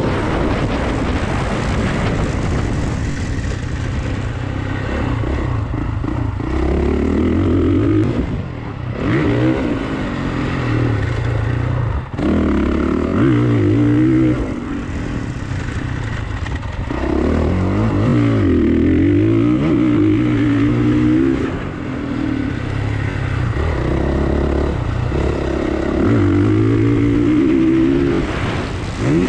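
Motocross dirt bike engine heard on board, revving up and dropping off again and again as the rider works the throttle and gears around the track. There is a sharp knock about twelve seconds in.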